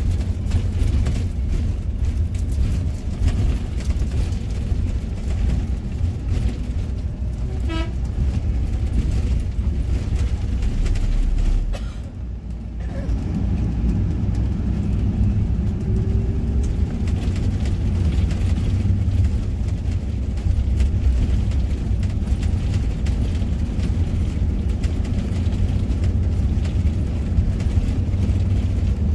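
Steady low engine and road rumble inside a moving coach bus's cabin, with a short horn toot about eight seconds in. The noise drops briefly around twelve seconds before the rumble picks up again.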